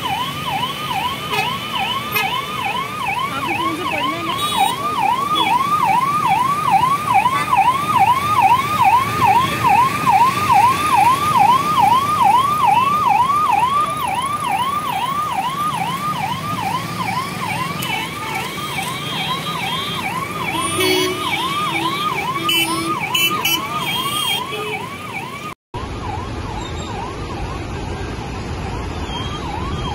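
Electronic emergency-vehicle siren sounding a fast repeating falling whoop, about two to three cycles a second, over road traffic noise. It is loudest in the first half and continues, a little fainter, after a brief dropout near the end.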